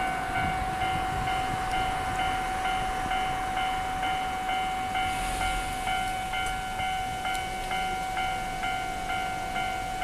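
Japanese railway level crossing warning bell ringing with the barriers down. It repeats its electronic ding about one and a half times a second over a steady underlying tone.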